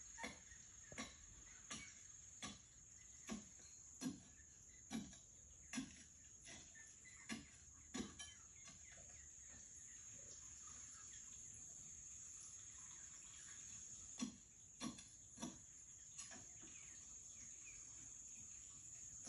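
Metal digging bar jabbed repeatedly into packed earth: short, dull strikes a little over one a second, a pause of several seconds, then three more. A steady high hiss runs underneath.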